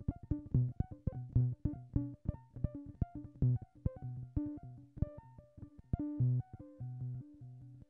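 Analog synthesizer sequence from a DIY MFOS Sound Lab Mini-Synth with WP20, stepped by a Doepfer MAQ 16/3 sequencer: short plucked-sounding notes in a fast repeating pattern, about five a second. The tone changes as the synth's knobs are turned and grows duller and quieter toward the end.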